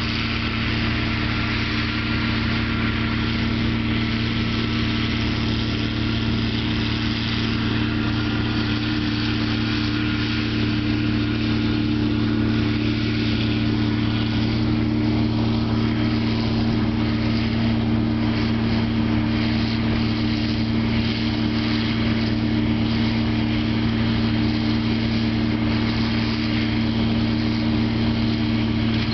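John Deere 4440 tractor's six-cylinder diesel engine running at a steady speed, with a John Deere 567 round baler working behind it.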